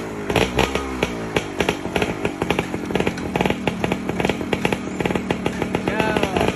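Small motorcycle engine running just after being started, a rapid, even putter of firing strokes, with a brief rev that rises and falls near the end.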